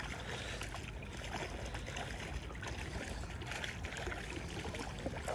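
Steady rush of a creek's flowing water over shallow riffles.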